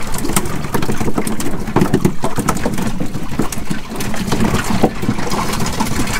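Boat engine idling steadily, with scattered clicks and knocks over it.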